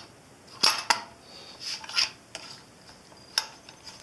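Metal parts of a Fadal CNC mill's drawbar cylinder assembly clinking and knocking as they are fitted together by hand: two sharp clinks within the first second, a light scrape at about two seconds, and a single sharp tick later on.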